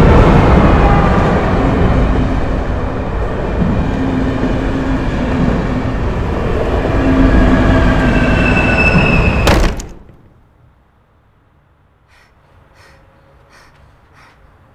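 Electric commuter train running loudly, a deep rumble under whining motor tones that fall at first and rise again later. About nine and a half seconds in, a sharp click and the sound cuts off abruptly, leaving a low hush with a few faint ticks.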